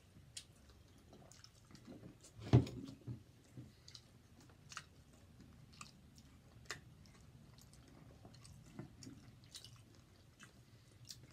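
Two people chewing and biting into fried egg rolls with their mouths close to the microphone, with scattered short clicks and one loud thump about two and a half seconds in.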